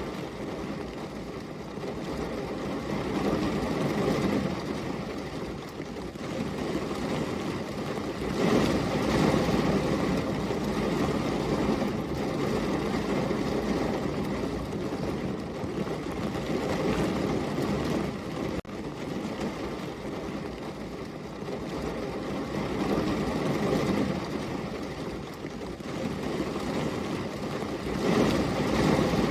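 Heavy rain falling, a steady rushing noise that swells louder about eight seconds in and again near the end.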